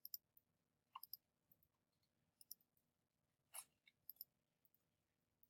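Faint computer mouse clicks over near silence: several short clicks, some in quick pairs.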